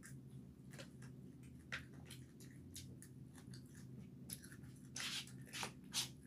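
Quiet close-up chewing of a mouthful of rice, with soft wet mouth sounds and scattered light clicks, some of them from a fork and spoon working in a plastic takeout container.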